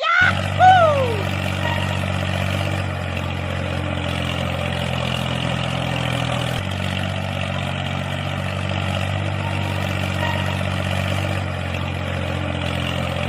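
Engine running steadily at idle, cutting in abruptly, with a brief rising-then-falling pitched sound over its first second.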